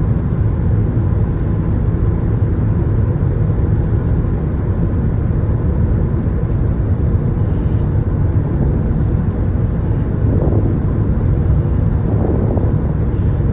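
Steady road and tyre noise inside a 2017 Toyota Prius Prime cruising on a freeway in light rain: a constant low rumble with no breaks.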